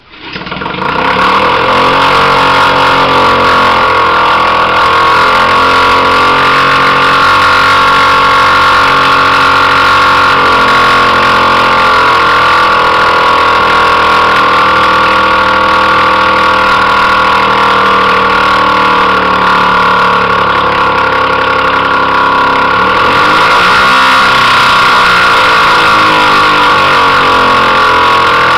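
Small vintage two-stroke outboard motor catching right at the start and running loud and steady with its lower unit in a bucket of water. Its speed wavers, with one brief rev up and back down about two-thirds of the way through.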